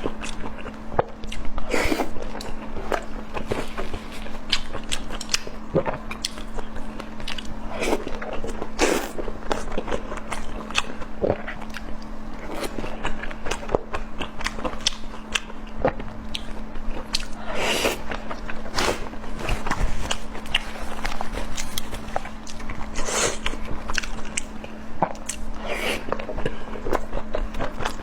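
Close-miked mouth sounds of a person eating: biting and chewing food, with frequent irregular crunches and smacks. A steady low hum runs underneath.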